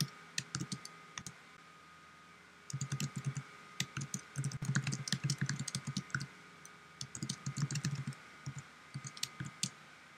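Typing on a computer keyboard: several quick bursts of key clicks separated by short pauses.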